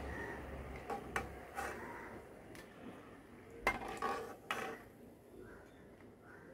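Metal slotted spoon knocking and scraping against a metal kadai and wire strainer while fried chana dal vadas are lifted out of hot oil: about seven sharp clinks, the loudest a little past halfway, over a soft frying sizzle that fades.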